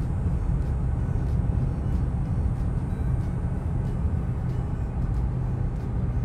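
Steady road noise of a car driving at speed, heard from inside the cabin: a constant low rumble of tyres and engine.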